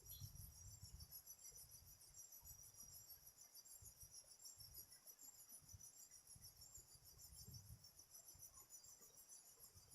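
Faint, steady high-pitched chorus of crickets, with a soft low rumble underneath.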